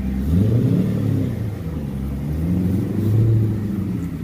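GM LSX V8 swapped into an Infiniti G35, revving up and down as the car is driven. The engine note jumps up about a third of a second in, then rises and falls several times.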